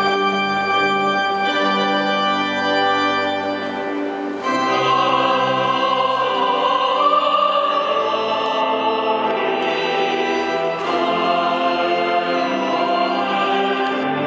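Organ playing sustained chords, joined about four and a half seconds in by a singing voice over it.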